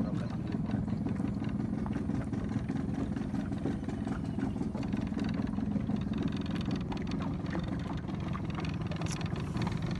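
A small boat's engine running steadily while the boat is under way.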